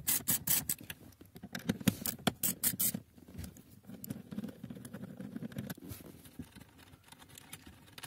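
A hand ratchet and socket clicking in quick runs as it loosens the nuts holding a dashboard trim panel. After about three seconds the clicking thins to a few clicks among scraping and handling.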